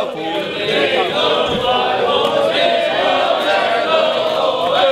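A group of people singing a song together, many voices at once.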